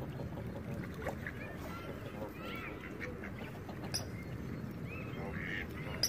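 Canada geese and ducks calling at scattered moments, with short honks and quacks, over steady low background noise.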